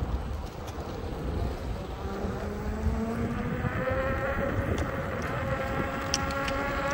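Veteran Sherman electric unicycle's hub motor whining, the pitch slowly rising as it gathers speed, over wind rumble on the microphone.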